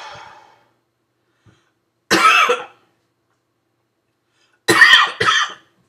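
A man coughing, his throat burning from a just-eaten Trinidad Moruga Scorpion chili pepper: one harsh cough about two seconds in, then two quick coughs near the end.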